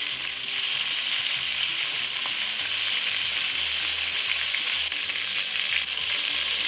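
Beef chunks sizzling steadily as they sear in hot vegetable oil in a Dutch oven.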